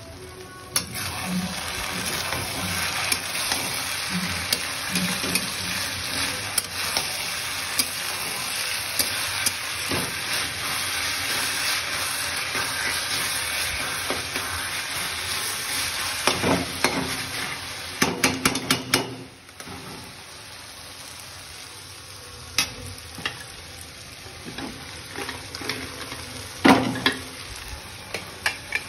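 Sliced onions sizzling in hot oil in a steel kadhai while a metal spatula stirs and scrapes them around the pan. A run of clanks from the spatula against the pan comes past the middle, after which the sizzle is much quieter, with occasional knocks.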